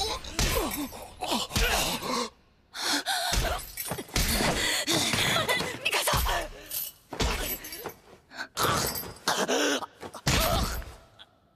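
Animated fight sound effects: a series of heavy blows landing on a body, one every second or so, with pained grunts and shocked gasps between them.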